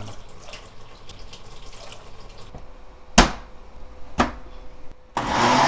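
Water poured from a glass bowl into a blender jar over chunks of pear and onion, then two sharp clicks as the lidded jar is fitted. Near the end the blender motor starts, running loud and steady as it grinds the marinade.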